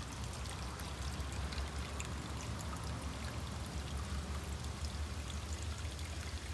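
Water pouring and trickling steadily into a pond, with small splashes and a steady low rumble underneath.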